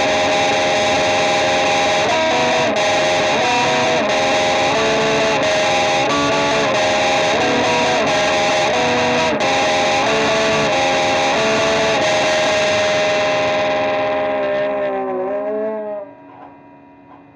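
Music led by a heavily distorted electric guitar playing a riff of shifting sustained notes. Near the end its high end fades away, the notes bend and wobble, and about sixteen seconds in it drops off to a faint ringing tail.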